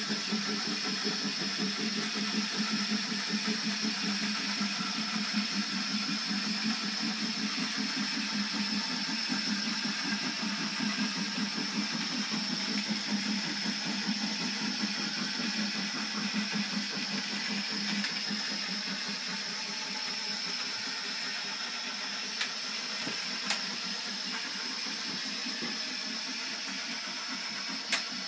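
Small electric motor and gearing of a model railway turntable running, turning the bridge with a locomotive on it: a steady fluttering buzz with a thin high tone above it. The buzz fades about two-thirds of the way through, and a few sharp clicks come near the end.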